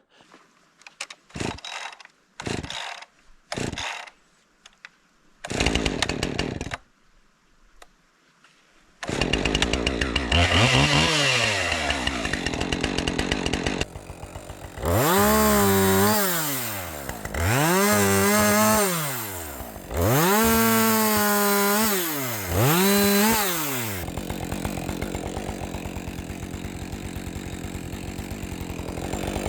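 Gas chainsaw with a 20-inch bar: after a few short separate sounds, the engine starts about nine seconds in and runs, its pitch rising and falling four times, then settles into a lower, steadier run near the end.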